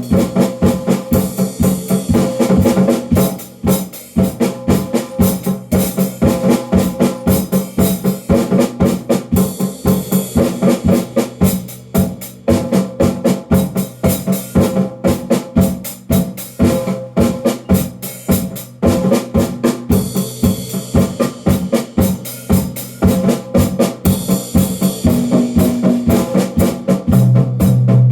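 A drum kit played in a steady, driving rhythm of about four strokes a second, with bass drum and snare, and sustained low tones ringing underneath.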